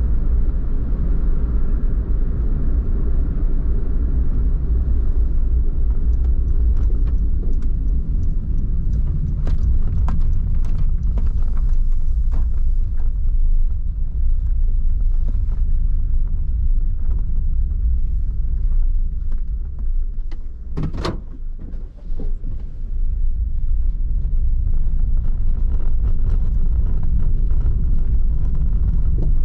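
Engine and road noise heard inside a Honda N-VAN kei van while driving: a steady low rumble, with scattered light clicks and rattles and a short, sharper knock about 21 seconds in.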